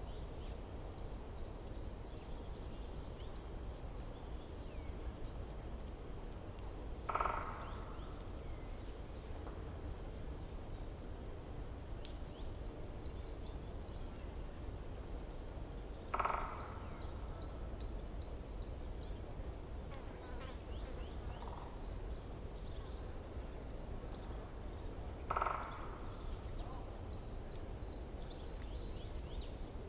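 Birds calling. One bird repeats a fast run of high paired notes, about three a second for two to three seconds at a time, every five seconds or so. A louder, short, lower call comes three times, about nine seconds apart. A steady low background noise runs underneath.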